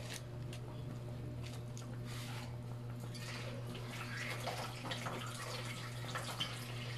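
Pot of sinigang broth under mustard greens simmering on the stove: soft bubbling and small scattered pops over a steady low hum.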